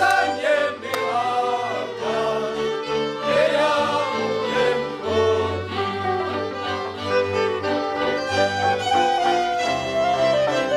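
Wallachian folk song performed by a group of singers with fiddle accompaniment and a bass line.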